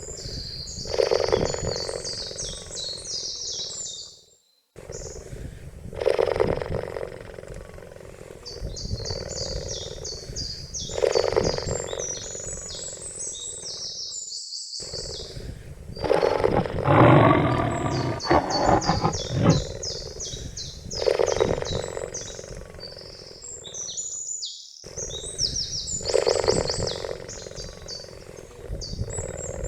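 A cheetah's low, rumbling growl-like calls recur about every five seconds. The loudest and longest comes around the middle. High-pitched rapid chirping runs behind them, and the sound cuts out abruptly for an instant three times.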